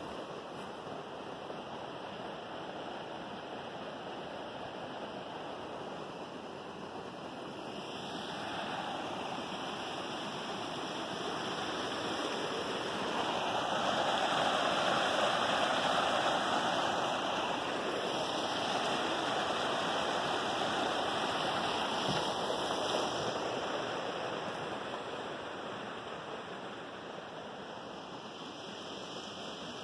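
Rushing water of a shallow rocky stream cascading over boulders, a steady rush that swells to its loudest around the middle and fades again toward the end.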